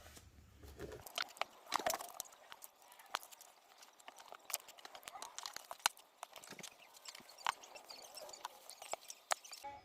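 Irregular sharp clicks and light taps of a metal feeler gauge being handled and worked against the edge of an iPhone 8 Plus screen, to break the display's adhesive seal.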